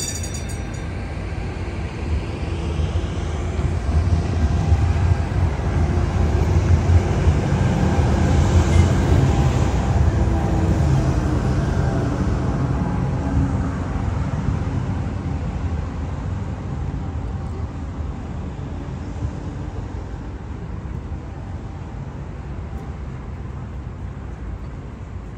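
Electric street tram passing along its tracks: a low rumble with a faint motor whine that builds over the first few seconds, is loudest around the middle, then slowly fades away.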